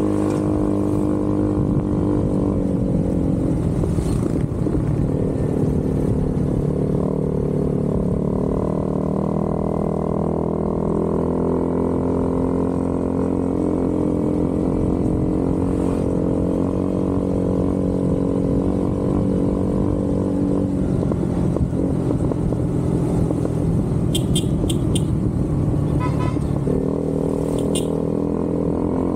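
Motorcycle engine running while riding along the road, its note shifting a few times with the throttle, over a steady low rush of wind and road noise.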